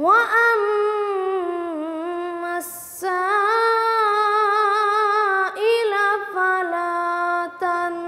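A young high voice chanting Quranic recitation in a melodic tajweed style, drawing out long held notes that glide and step down in pitch, with short breaks between phrases and a brief hiss about two and a half seconds in.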